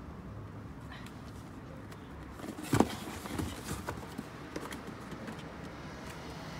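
A sudden hollow knock about three seconds in, followed by scattered lighter knocks and scuffs: a kitten moving about on a cardboard box.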